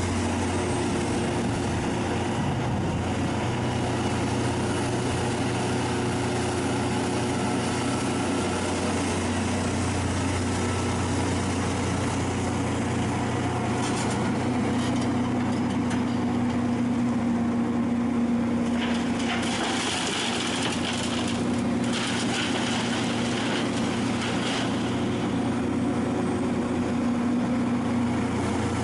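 Hitachi Zaxis 470 LCH excavator's diesel engine running steadily under working load as it digs and swings. The engine note rises partway through, and a few seconds of rushing noise come in about two-thirds of the way through.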